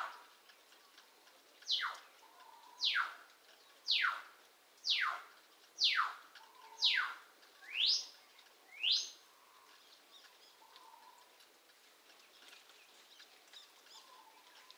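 Pet bird giving loud calls about once a second. Each is a sharp whistle sweeping steeply down in pitch, and the last two sweep up instead. The calling stops about nine seconds in.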